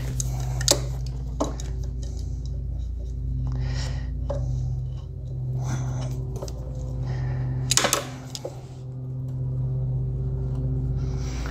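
Sharp clicks and handling noises of hand tools as the last cotter pins come out of the ATV's ball-joint and tie-rod nuts: three distinct clicks, two near the start and one past the middle, over a steady low hum.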